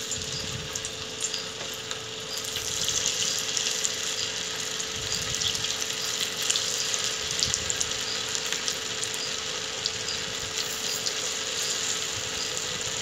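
Sabudana vada patties deep-frying in hot mustard oil in an iron kadhai: a steady sizzle with fine crackling as the patties are slid into the oil one by one.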